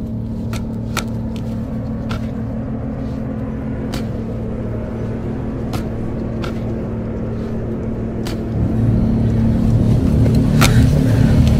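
A low, steady droning rumble with a held low tone, swelling louder about eight and a half seconds in, with a few sharp clicks scattered through it: an ominous sound-design drone.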